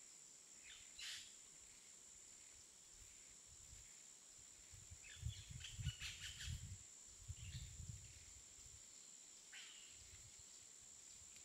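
Faint outdoor ambience with a few short, high bird chirps scattered through, over a steady faint hiss with a thin high whine. A low rumble comes and goes in the middle.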